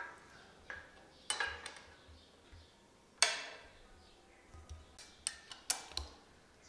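A 6 mm steel Allen key clinking and tapping as it is fitted into the hex-socket bolts of a motorcycle handlebar clamp: a series of short, sharp metal clinks at uneven gaps, the loudest about three seconds in.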